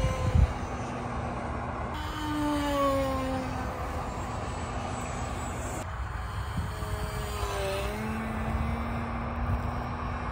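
O.S. 15 LA two-stroke glow engine of a balsa RC plane running in flight overhead, a thin buzzing note that slides slowly in pitch as the plane passes, over a low rumble.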